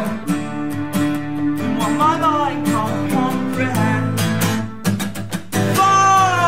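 Unplugged band performance: strummed acoustic guitar with a sung melody over it, drawn-out notes about two seconds in and again near the end.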